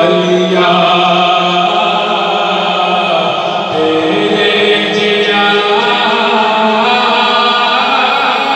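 A man chanting an unaccompanied Islamic devotional kalam (naat) into a microphone, amplified, in long held notes that slide from pitch to pitch.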